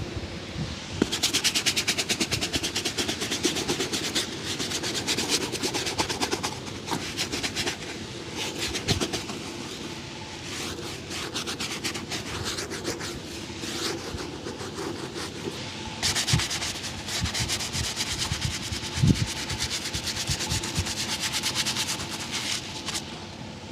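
Fast back-and-forth rubbing on a leather shoe during a shoe shine, in two long bouts of quick, even strokes, with a few soft knocks between them.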